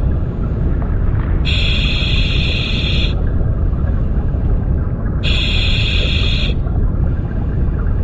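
Steady low rushing rumble of river current heard underwater. A high, even hiss switches on abruptly for about a second and a half, twice.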